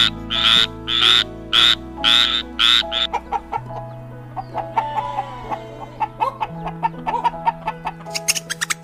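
A frog croaking in a quick, regular series, about two croaks a second, over background music. The croaks stop about three seconds in while the music carries on, and a quick run of sharp clicks comes near the end.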